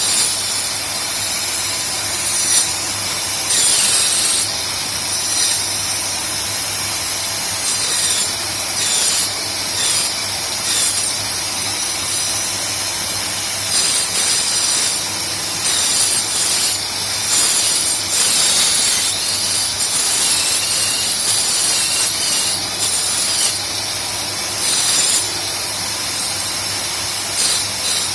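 Homemade wood copying lathe running and cutting a wooden blank: a steady motor hum under a grinding, hissing cut that surges louder every second or two as the cutter bites into the wood.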